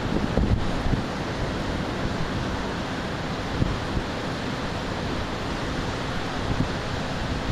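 Thunderstorm ambience: a steady rush of wind and rain, with wind buffeting the microphone and a few louder low bumps in the first second.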